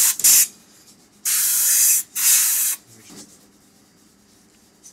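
Airbrush spraying paint through a stencil in short trigger-controlled bursts: two quick hisses at the start, then two longer ones of under a second each, about a second in, each cutting off sharply. Faint handling follows as the spraying stops.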